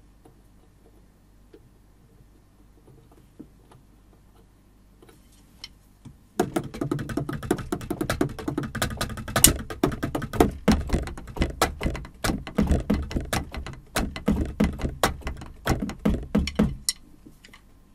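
Yamaha DTX6K-3X electronic drum kit played with sticks: a quick run of strikes across the pads and cymbal pads. It starts about six seconds in and stops a second before the end. This is a test-play to check pad placement on the newly set-up rack.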